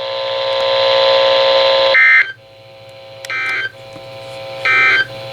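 A steady buzzing tone for about two seconds, then three short warbling data bursts about 1.4 seconds apart: the Emergency Alert System end-of-message code closing a NOAA Weather Radio alert.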